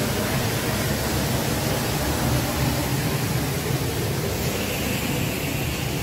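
Steady rushing of a large waterfall, the Upper Düden Waterfall, heard from the cave behind the falling water.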